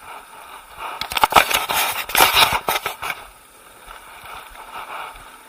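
Crackling, scraping handling noise as a head strap is pulled on and adjusted, a dense run of rubs and clicks from about one to three seconds in.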